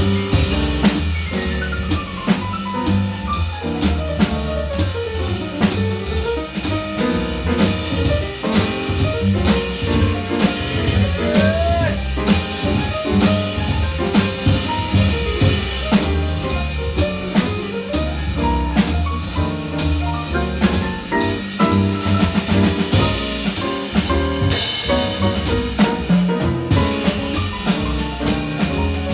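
Live jazz from an acoustic grand piano, upright double bass and drum kit playing a slow tune. The piano plays descending runs over the bass line, with steady light cymbal and drum strokes.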